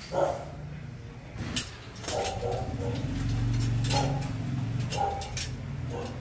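A dog barks once at the start, then light metal clinks and rattles of folding mosquito-net frame parts being handled, over a low hum that swells for a couple of seconds in the middle.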